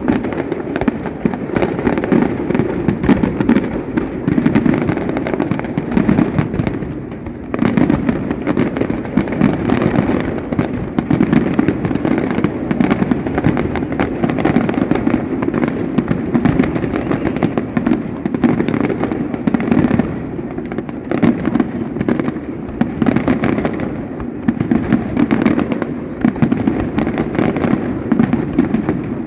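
Fireworks display in a dense, continuous barrage: many overlapping bangs and crackling reports with no real pause, easing briefly about seven seconds in.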